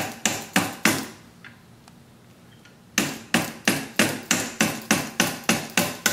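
Soft-face mallet tapping the end of a cleaning rod, driving a lead slug down a rifle bore to slug it: a quick run of four sharp taps, a pause of about two seconds, then steady taps about three a second.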